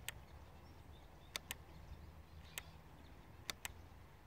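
Quiet, with a faint low rumble and about six sharp clicks, two of them in quick pairs. The scooter's engine is not running.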